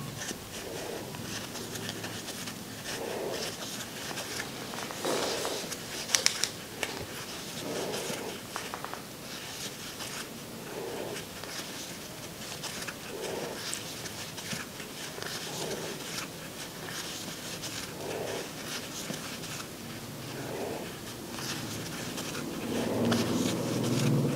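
Close-up sounds of crocheting picked up by a clip-on microphone: yarn and a crochet hook rustling and scratching, with a few sharp clicks about six seconds in. Soft breaths come every two to three seconds.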